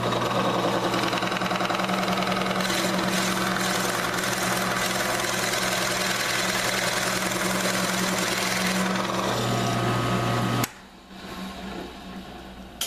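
Drill press running with a large Forstner bit boring into a wooden block. The bit chatters because the cut overlaps an existing smaller hole. The drilling noise stops abruptly about ten and a half seconds in.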